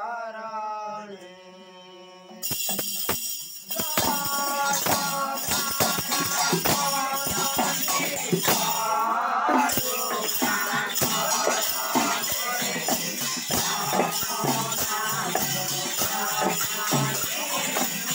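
Men singing a devotional chant together. About two seconds in, small hand cymbals start jangling in a steady rhythm with the singing and keep going.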